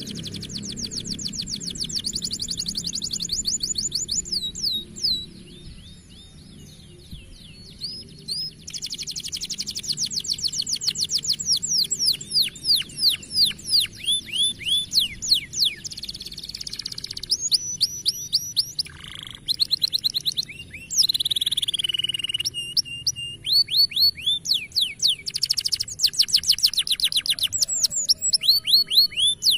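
Canary singing in fast trills of repeated downward-sweeping notes, phrase after phrase, with a short lull about six seconds in. A faint steady low hum runs underneath.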